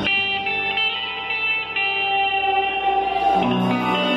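Instrumental surf rock played live on electric guitars and bass. A chord struck at the start rings on under high lead notes, and a new, lower chord comes in about three seconds in.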